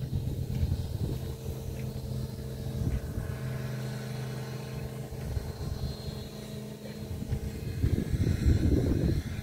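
Paddlewheel aerators on a lined shrimp pond running with a steady mechanical hum, churning the water. An uneven low rumble, typical of wind on the microphone, lies under it.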